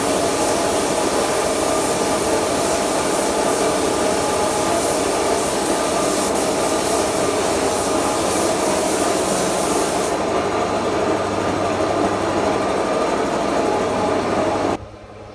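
Steady, loud rushing hiss of woodworking-shop finishing work on wooden panels. The highest part of the hiss stops about ten seconds in, and the whole sound cuts off sharply near the end, leaving a low hum.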